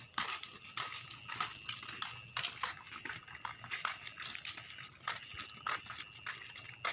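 Irregular footsteps clicking and scuffing along a path, several a second, over a steady high-pitched drone of night insects.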